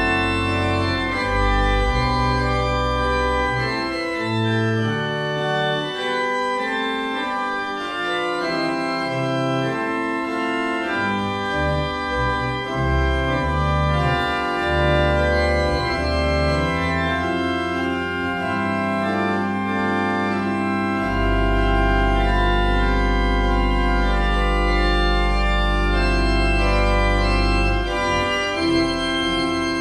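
Church organ playing a slow piece in sustained chords over a moving bass line. About two-thirds of the way through, a deep bass note comes in and holds for several seconds.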